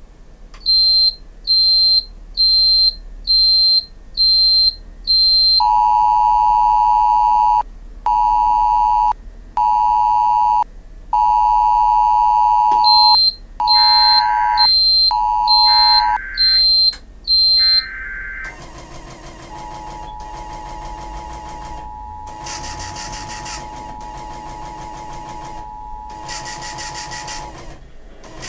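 Emergency Alert System tones on an internet radio stream: six short high beeps, then a run of longer steady electronic tones with short gaps. Then come three brief screechy data bursts, the SAME header, about two seconds apart. After that a steady attention tone sounds under a hiss for about eight seconds, ahead of the spoken Amber Alert.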